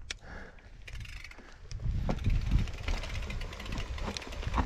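Scott Spark RC mountain bike rolling over a rough trail: tyre rumble and small rattles and clicks, getting louder about two seconds in.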